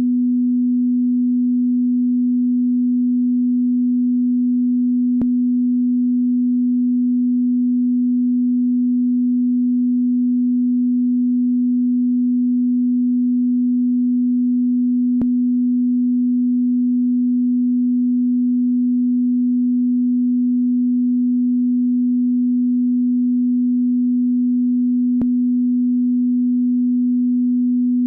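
A telephone beep tone: a single steady pure low pitch held without a break, with a faint click about every ten seconds.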